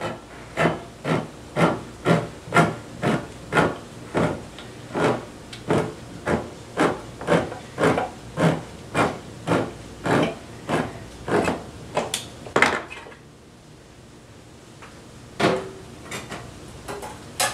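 Manual crank can opener cutting around the rim of a large steel tin of tomatoes, a sharp click with each turn of the key at a steady pace of about two a second; the cranking stops about thirteen seconds in. Near the end comes one loud clack and a few small knocks.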